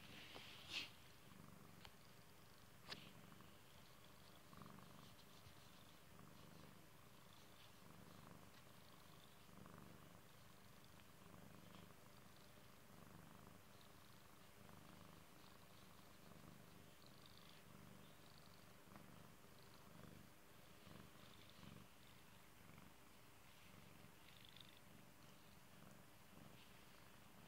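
Domestic cat purring softly while being stroked, the purr swelling in slow pulses about once a second. Two sharp clicks within the first three seconds.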